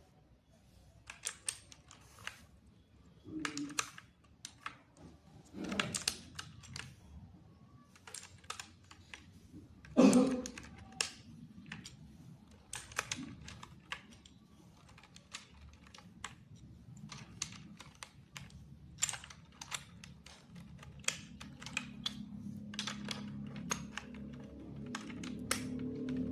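Mechanical keyboard switches being typed on, giving irregular key clicks and clacks with a few heavier knocks. A low steady hum builds up under the clicks over the last few seconds.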